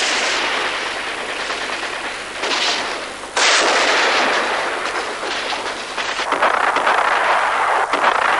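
Battle sound of gunfire and explosions: a continuous noisy din, with a sudden loud blast about three and a half seconds in and a run of quick sharp shots near the end.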